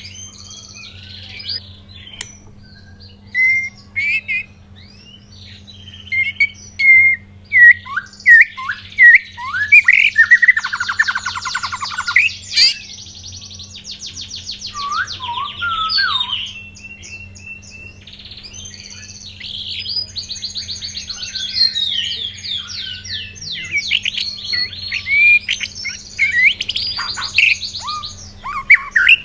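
White-rumped shama singing loudly in a long, varied run of whistled notes, fast chattering trills and harsh rattles, broken by short pauses between phrases, over a steady low hum.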